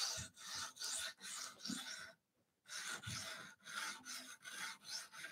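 A 220-grit sharpening stone on an Edge Pro guided arm scraping back and forth along a Spyderco Paramilitary 2's steel blade, about two strokes a second, with a brief pause a little after two seconds in. The coarse stone is setting the edge bevel at 23 degrees.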